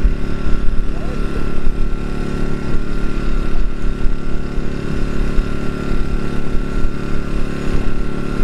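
Steady drone of running engine machinery, with a constant whining tone over a low, unsteady rumble.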